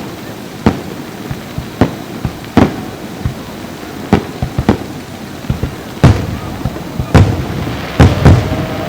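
Fireworks shells bursting overhead: sharp bangs about once a second, with heavier, rumbling booms coming closer together near the end.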